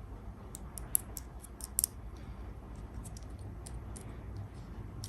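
Crinkling and clicking of candy and toy-egg wrappers being handled and opened: a quick cluster of sharp crackles about a second in, then scattered clicks.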